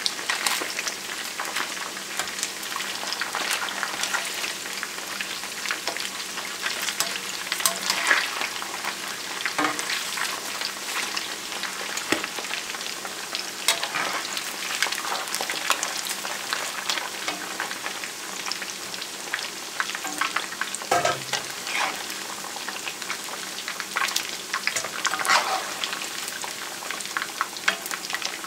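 Catfish pieces frying in oil in a cast-iron skillet: a steady sizzle with scattered crackling pops, and now and then the knock and scrape of a metal spoon turning the pieces in the pan.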